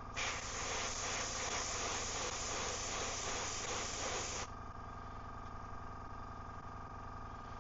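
Airbrush spraying paint onto a lure blank: a steady hiss that starts just after the beginning and cuts off abruptly about four and a half seconds in, over a steady background hum.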